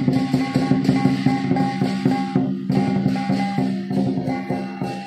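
Music with a rapid percussive beat over sustained pitched tones.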